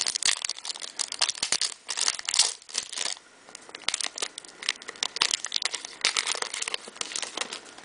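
Foil wrapper of a trading-card pack crinkling as it is torn open, a dense crackle that comes in several bouts.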